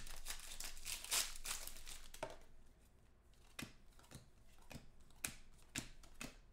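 Foil trading-card pack crinkling and tearing open by hand, then from about two seconds in, sharp snaps about twice a second as the cards are flicked through one by one.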